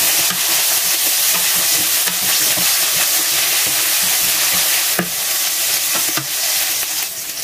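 Chopped onion, garlic and ginger sizzling loudly in hot oil in a non-stick frying pan, just after the onion has gone in. A wooden spatula stirs it and knocks against the pan a few times.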